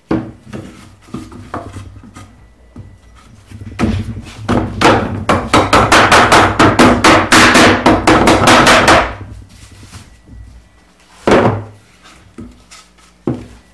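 Claw hammer striking pine 2x4 boards to drive a glued, tight-fitting inlay board down into a wooden frame: a fast run of strikes, about four or five a second for some four seconds. Light clicks come before it, and two single wooden knocks follow near the end.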